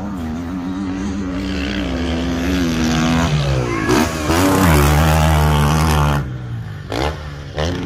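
KTM four-stroke motocross bike under hard throttle, the revs climbing steadily. Around a jump about four seconds in, the revs dip and then sweep up again, and they are held high. About six seconds in the throttle snaps shut, followed by two short blips near the end.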